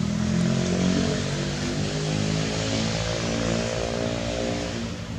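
A motor vehicle's engine passing by, swelling and then fading, its pitch dropping slightly as it goes.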